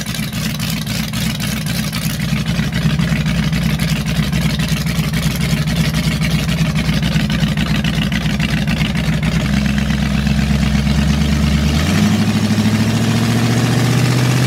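Open-header V8 of a hot-rod Ford Pinto wagon drag car, heard from inside the cabin as the car creeps forward in drive. The engine note steps up about ten seconds in and climbs again about two seconds later under a little throttle.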